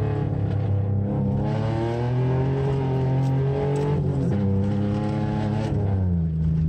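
Car engine heard from inside the car at full throttle on an autocross run. The pitch rises and falls as the car accelerates and slows through the cones, with a sudden change about four seconds in and a drop near the end as the driver lifts off.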